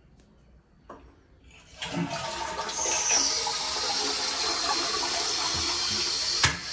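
Toilet flushing: water rushes loudly and steadily from about two seconds in. A sharp knock comes near the end.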